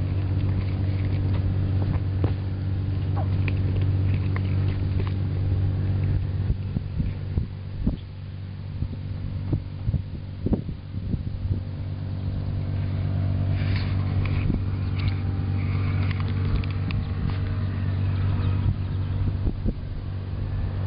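Motor yacht's engine running steadily, a low drone, with occasional short knocks.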